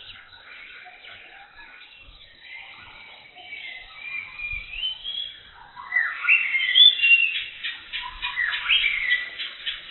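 Jungle birds calling and chirping: short whistled notes that slide in pitch, faint at first and louder from about halfway through, with a fast trill of repeated notes.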